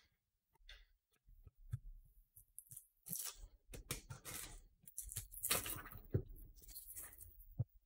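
Plastic shrink wrap on a sealed trading-card hobby box being slit with a box cutter and torn off, crinkling and rustling in an uneven run of crackles, loudest a little past the middle.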